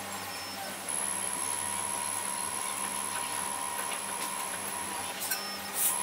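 Xhorse Dolphin XP-005 automatic key machine tracing an original key during key learning: the motors drive the clamp carriage against the probe with a steady high whine that starts about a second in. A couple of short clicks come near the end.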